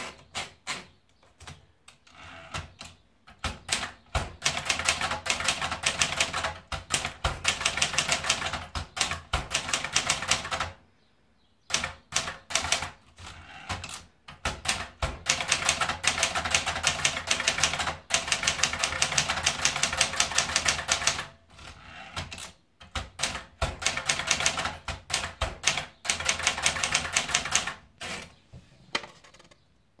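Brother Deluxe 1522 manual portable typewriter: a few clicks as the platen knob winds the paper in, then long runs of rapid keystrokes with short breaks between them as three lines are typed.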